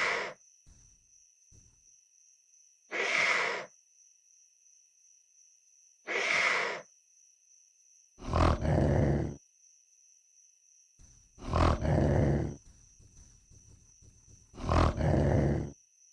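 Designed dinosaur vocal sound effects for a Dromaeosaurus. Three short, higher-pitched calls come a few seconds apart, then three longer, deeper roars of about a second each, with pauses between every call.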